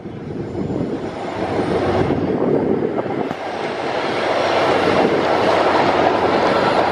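MBTA commuter rail train of bi-level coaches passing along an elevated viaduct: a steady rushing rumble of wheels on rail that grows louder over the first few seconds.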